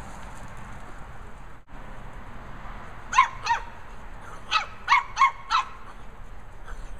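Lhasa Apso puppy barking: two quick, high barks, then a run of four more about a second later.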